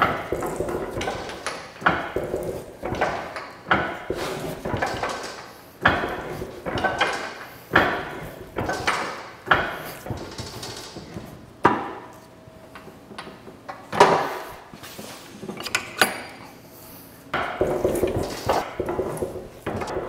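A 1/4-inch keyway broach being pressed through the bore of a metal shaft-coupling hub on an arbor press. There are sharp metallic cracks about every two seconds as the broach teeth cut, each followed by a short clattering rattle.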